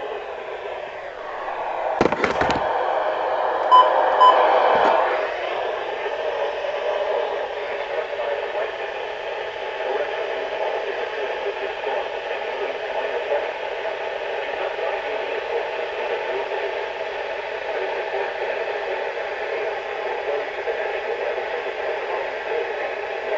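Radio receiver static: a steady noisy hiss. There is a sharp click about two seconds in and two short high beeps about a second and a half later.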